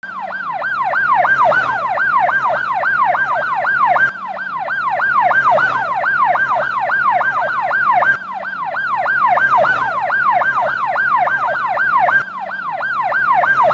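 Police car siren on a fast yelp, its pitch sweeping up and down about five times a second. The level drops sharply and swells back about every four seconds.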